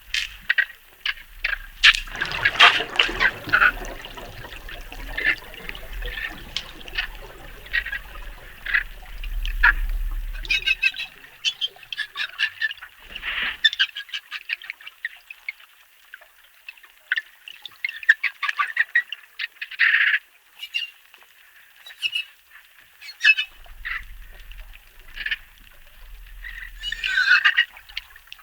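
Dolphins calling: rapid trains of clicks mixed with short squeaky whistles and squawks, with a low rumble underneath for stretches.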